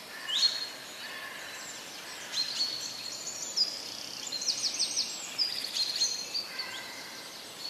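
Several birds chirping and whistling in quick high calls, over a steady faint rush of water from a forest stream and waterfall.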